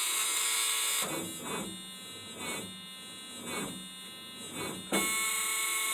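1984 Ford F-250 failing to start after a new starter solenoid: a buzz with four swells about a second apart, and the engine never catches.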